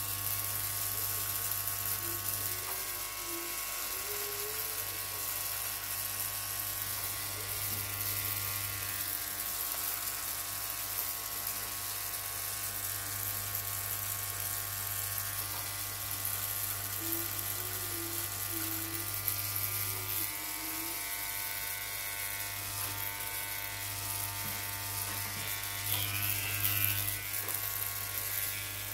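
Wahl electric hair clipper buzzing steadily while trimming a moustache and the hair under the chin.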